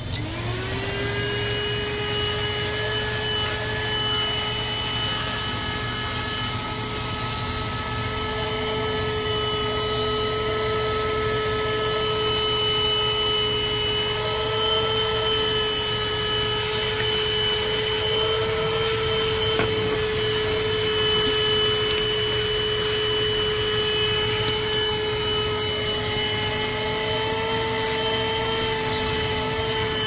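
Voroly 12 V handheld car vacuum cleaner switched on: its motor spins up within about a second to a steady whine over a rush of air, running as the extension nozzle sucks dust from a carpeted floor mat. It starts winding down at the very end.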